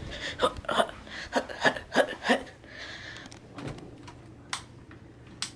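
Scattered knocks and rustles of the camera being carried through a doorway, then a few separate sharp clicks in the second half. The clicks are a ring light's inline cord switch being pressed, and the light stays dead after a lightning surge.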